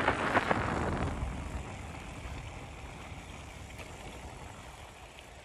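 Wind buffeting a phone microphone, dying away over the first couple of seconds and leaving a faint, steady outdoor rumble.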